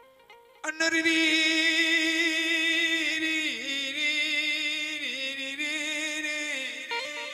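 A male singer's voice comes in under a second in and holds one long sung note for about six seconds, wavering with vibrato and dipping in pitch twice, over faint plucked-string notes.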